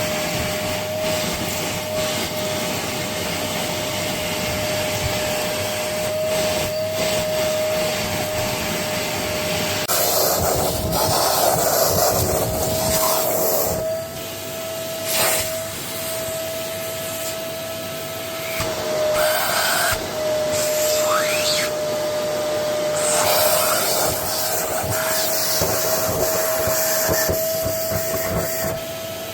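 Goblin Essentials cylinder bagless vacuum cleaner running, its motor giving a steady whine. Louder rushing, rattling bursts come and go in the second half as it works over the mess.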